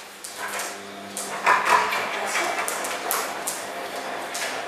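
A Labrador's claws clicking irregularly on a tile floor as the dog walks and turns, over a steady low hum. A louder short sound comes about a second and a half in.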